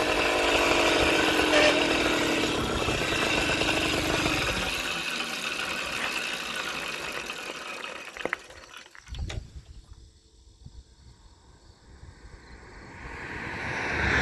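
Motorized bicycle's engine and rushing air as the bike slows and rolls to a stop, the engine note falling and fading away over about eight seconds. A few sharp clicks follow. Near the end another vehicle approaches, swelling loudly as it passes.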